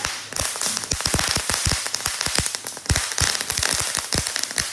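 Ground firework spraying sparks: a steady hiss that starts suddenly, with many irregular sharp crackling pops throughout.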